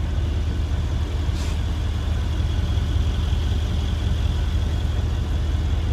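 A vehicle engine idling steadily, a low, even rumble, with a faint short tick about a second and a half in.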